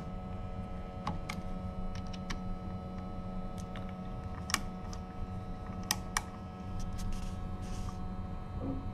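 Scattered, isolated sharp clicks of a hand screwdriver and small metal hardware being worked on the CNC router's gantry. They sound over a steady hum of several fixed tones from the router's powered servo motor.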